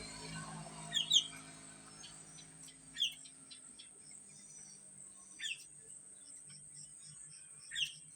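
A starling (jalak) mimicking chick calls: short high peeps, a quick pair about a second in, then single peeps spaced a few seconds apart.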